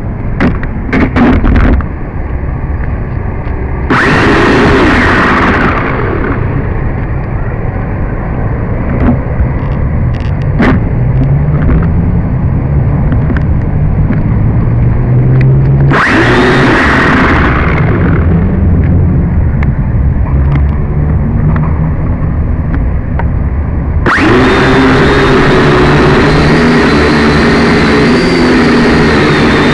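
Strong wind buffeting the microphone, with the small motors of a Syma X5C toy quadcopter whining in bursts about 4 and 16 seconds in and steadily from about 24 seconds on, the pitch wavering as the drone struggles in the wind.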